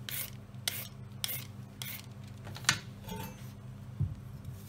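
A Y-peeler with a toothed blade scraping down a raw carrot in quick strokes, about two a second, for the first half. Then a sharp click, and a knife knocking once on the wooden chopping board near the end as it cuts the carrot.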